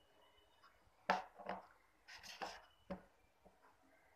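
Yellow glue slime being scraped out of a red plastic bowl and handled on a tabletop, making a few short knocks and sticky squishes bunched together a second or two in; the loudest comes suddenly about a second in.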